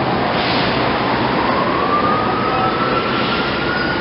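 Emergency-vehicle siren in a slow wail: its pitch bottoms out about half a second in, then climbs steadily for about three seconds, over loud, steady street noise.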